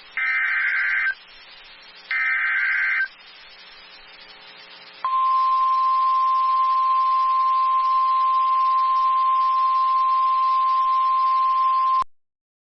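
NOAA Weather Radio Emergency Alert System SAME header: two raspy, warbling digital data bursts, each about a second long and a second apart, the last two of a set of three. About two seconds later a steady single-pitch 1050 Hz alert tone sounds for about seven seconds and cuts off suddenly, announcing a new warning.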